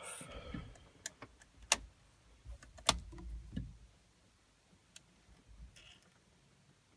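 A few sharp clicks, irregularly spaced, over the first three seconds, with faint knocks among them; then little more than background.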